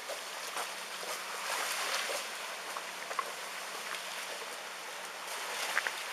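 Tsunami floodwater streaming along the ground: a steady rushing hiss that swells about two seconds in, with a few faint clicks.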